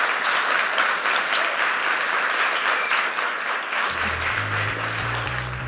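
Audience applauding, a dense patter of many hands clapping. About four seconds in, music with a bass line comes in under the applause.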